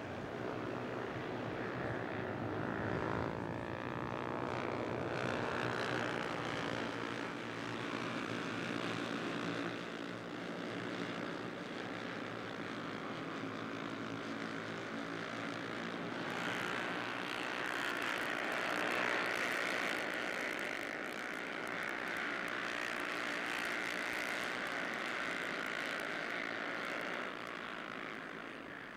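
Several Honda CB 300R racing motorcycles running at high revs, their single-cylinder engines making a continuous buzzing drone whose pitch rises and falls as bikes pass. It grows louder and brighter for about ten seconds in the second half.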